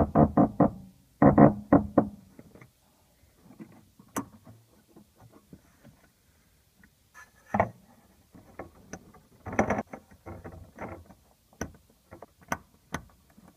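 Music playing, loudest in the first couple of seconds and fainter after. Sharp clicks and knocks come every few seconds, several near the end, from the plastic fuel pump assembly and its wiring connector being handled and seated in the tank.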